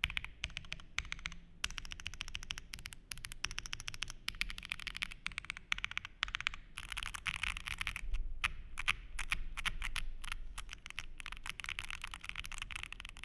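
Fast typing on a Chalice40 mechanical keyboard with WS Heavy Tactile switches, a POM plate and GMK Pulse keycaps: a dense run of key clacks with a few brief pauses.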